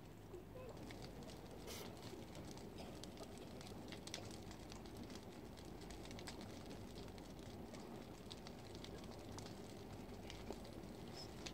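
A large wooden temple structure on fire: faint, irregular crackles and pops from the burning wood over a steady low rumble.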